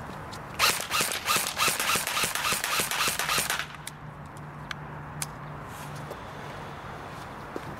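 Echo 1 Platinum M4 airsoft electric gun (AEG) firing one fully automatic burst of about three seconds, starting about half a second in. It is a rapid, even rattle of the gearbox cycling. A few scattered single sharp clicks follow.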